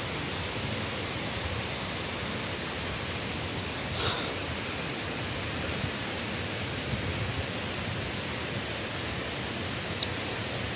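Steady rushing of running water from a river and waterfall, an even hiss with no change, and a single small click near the end.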